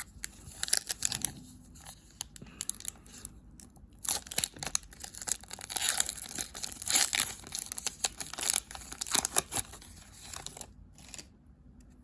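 A hockey card pack's wrapper being torn open and crinkled by hand, a run of quick irregular rustles that stops near the end.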